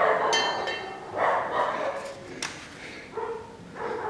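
A dog barking several times, short barks a second or so apart.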